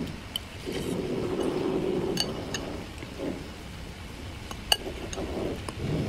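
Metal fork and spoon clinking against a ceramic soup bowl while eating noodle soup: several sharp, ringing clinks, the loudest near the end.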